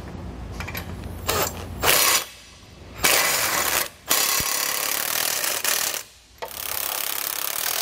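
Cordless impact wrench with a 3/4 inch socket running in several bursts of a second or two with short pauses, driving nylon lock nuts down on half-inch bolts to snug them up.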